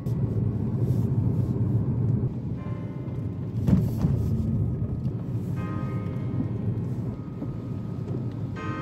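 Steady low road rumble of a car driving, with a brief thump about four seconds in. Soft background music comes in and out a few times over it.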